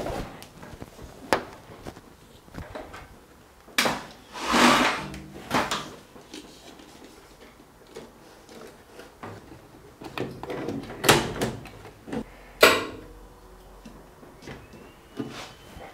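Hands fitting a Garmin avionics display into a metal aircraft instrument panel: scattered clicks and knocks with longer sliding, rubbing stretches, the loudest about four seconds in. Near the end a faint steady high tone starts as the avionics power up.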